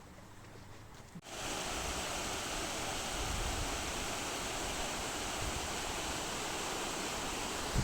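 Rushing water, a steady even roar that cuts in suddenly about a second in after a much quieter stretch.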